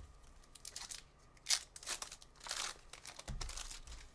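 A card pack wrapper crinkling and tearing as it is ripped open and handled, in a few short rustles, with a soft bump near the end.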